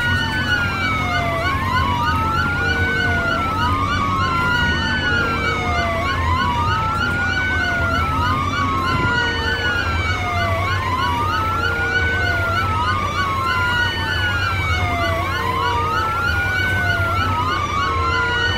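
Siren wailing in repeated cycles that rise quickly and fall slowly, every second or two, with more than one siren tone overlapping over a steady low hum. It starts and stops abruptly.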